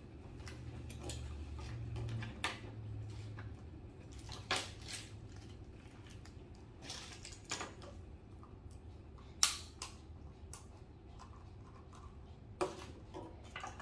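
Plastic fidget toys being handled and rummaged through: scattered sharp clicks and light knocks, about eight of them, the loudest about nine seconds in, over a low hum in the first few seconds.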